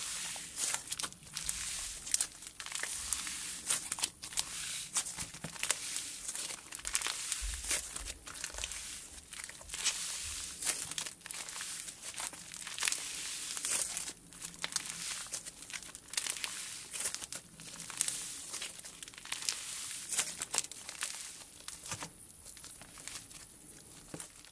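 Butter slime with crushed jelly cube slime mixed in, squeezed and stretched by hand, giving dense, sizzly crackling and crinkling pops that quieten near the end.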